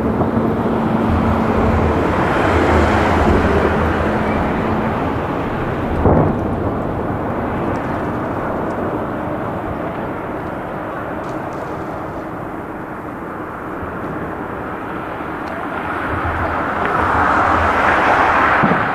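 Two sharp fireworks bangs, one at the start and one about six seconds in, over a steady rumble of city traffic and trains that swells again near the end.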